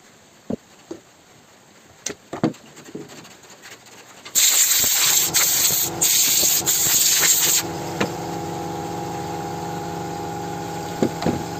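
A few clicks and knocks of small motor parts being handled on a workbench, then a loud hiss for about three seconds, broken by brief pauses. After that a steady hum with several tones runs on.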